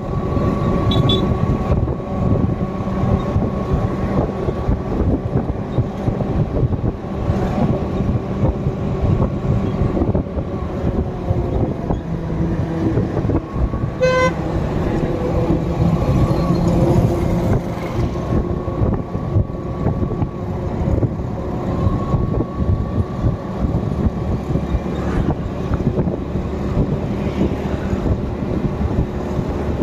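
Steady engine and road noise of a vehicle driving along a highway, with a brief horn toot about halfway through.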